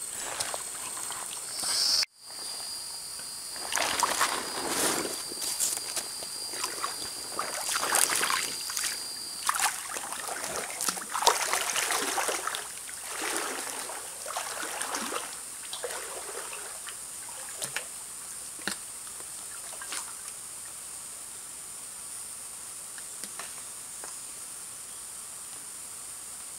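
Water sloshing and splashing in irregular bursts as a person wades through a shallow stream, dying down past the middle to a soft trickle with a few small knocks. A steady high-pitched insect hum runs underneath.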